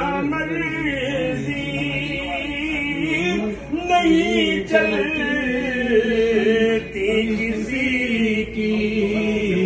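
A group of men's voices chanting zikr together, holding long sustained notes at several pitches that slowly rise and fall.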